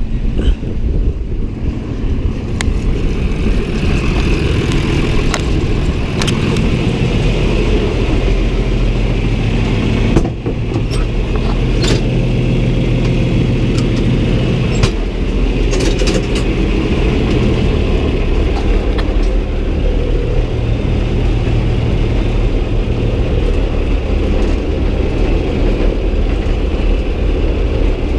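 Farm tractor engine running steadily under load, with occasional sharp knocks and rattles.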